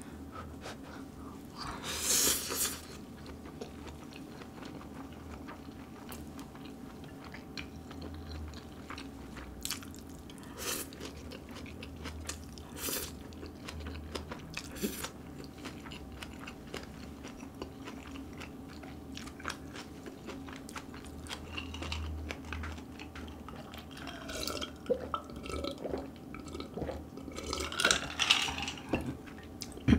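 Close-miked eating: a loud slurp of bibim makguksu buckwheat noodles about two seconds in, then steady chewing with small wet clicks and crunches. Near the end come louder gulping sounds as a drink is swallowed.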